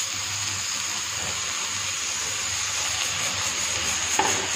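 Leafy greens (saag) tipped into hot oil in a kadhai, sizzling with a steady hiss.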